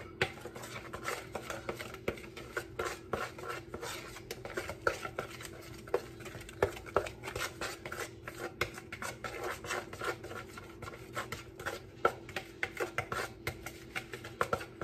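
A spoon stirring cornbread batter in a plastic mixing bowl, with irregular clicks and scrapes a few times a second as it knocks against the bowl's sides. A low steady hum runs underneath.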